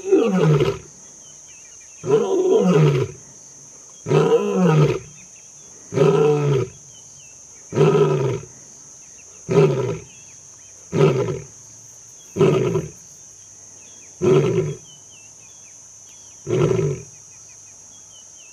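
Lioness roaring to proclaim her territory: a bout of about ten calls about two seconds apart, each dropping in pitch. The first few are long moaning roars and the later ones are shorter grunts.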